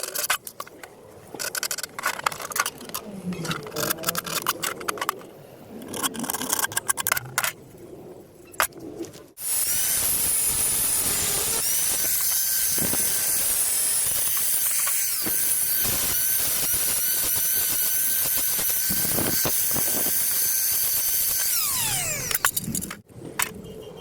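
Irregular clicks and scrapes for about nine seconds, then an angle grinder cutting square steel pipe: a steady high hiss and whine for about twelve seconds, ending as the motor winds down in a falling whine.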